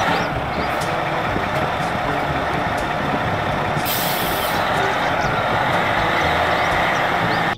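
Caterpillar off-highway mining haul truck's diesel engine running steadily under load, with a short sharp air hiss from the air brakes about four seconds in.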